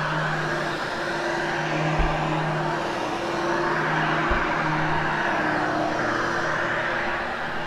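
Vacuum cleaner running over carpet for the post-vacuuming pass, its motor hum stepping back and forth between two pitches every second or so, with a dull low knock about every two seconds.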